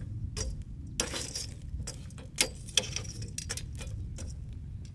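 Steel tongs clinking and knocking among charcoal briquettes in a stainless-steel fire pit as the coals are pushed into place, a string of irregular sharp clicks, the loudest two a little after halfway, over a low steady rumble.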